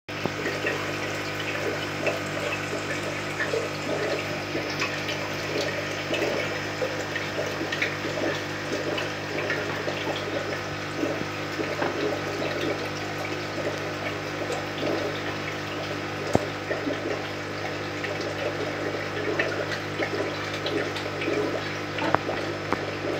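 An aquarium pump running with a steady low hum, while water bubbles and trickles. There is a single sharp click about two-thirds of the way through.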